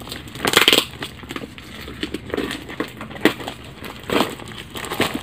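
Brown paper wrapping on a package being torn and crumpled by hand: a string of irregular rips and rustles.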